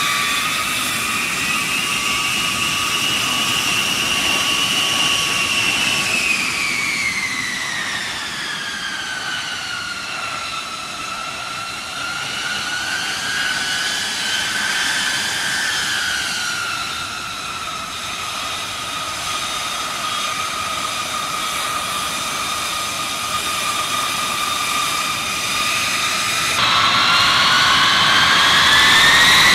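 B-52 bomber's jet engines running with a high turbine whine that glides down in pitch and back up again. Near the end it abruptly gets louder and the whine climbs.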